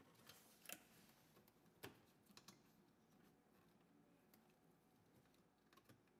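A few faint, scattered plastic clicks and taps, the clearest two within the first two seconds: electrical connectors for the footwell lamp and 12-volt socket being plugged back into a car's lower dashboard trim panel.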